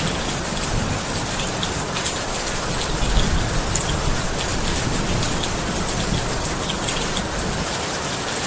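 Heavy rain falling steadily, with individual drops striking a surface as scattered ticks over an even rush.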